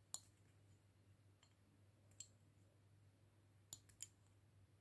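Scalpel blade clicking sharply against a hard black lid as it is pressed down through African violet pollen sacs to cut them in half. There is one click just after the start, another about two seconds in, and a quick group of three near the end.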